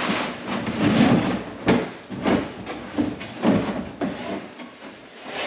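Dakine Low Roller hardside travel bag being handled and its upper shell pulled open: a run of rustling, scraping strokes with a sharp knock a little under two seconds in.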